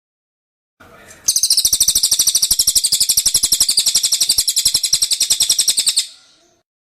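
Cililin bird singing a fast, even trill of high, sharp notes, about ten a second, starting about a second in and stopping abruptly near the end.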